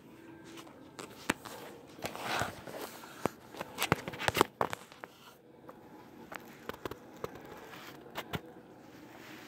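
Kinetic sand being squeezed, lifted and crumbled by hand: soft irregular crackling with scattered sharp clicks, busiest about two to five seconds in.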